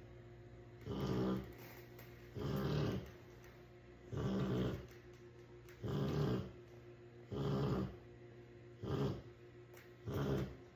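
A Rottweiler snoring in its sleep: about seven snores in a steady rhythm, one every second and a half or so.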